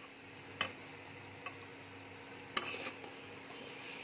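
Metal spatula stirring and scraping okra and onion slices around a metal kadai, over a faint frying sizzle. A few separate scrapes, the loudest about two and a half seconds in.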